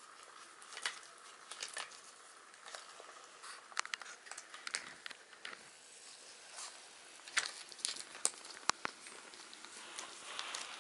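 Puppies chewing a paper card on a toy car: the paper crinkles in faint, irregular small crackles, with a few sharper clicks about three-quarters of the way through.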